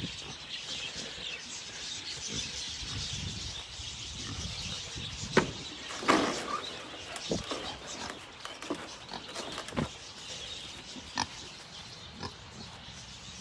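Kunekune pigs grunting now and then in short, scattered sounds, the loudest around five to six seconds in.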